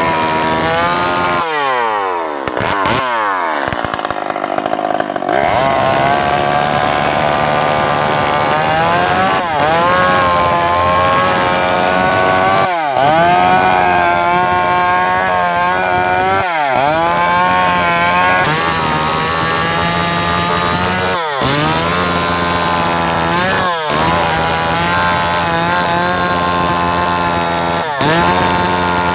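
Stihl MS 381 two-stroke chainsaw running at high revs, cutting into a tree stump. About two seconds in the revs fall away steeply and climb back, and several more times the engine pitch dips briefly and recovers as the chain bites into the wood.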